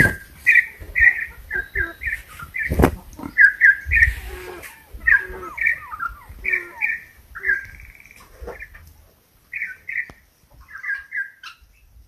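A campo troupial (currupião) singing a long series of short, clear whistled notes, mostly in pairs and small groups, with a brief pause about three-quarters of the way through. A few low knocks sound in the first third.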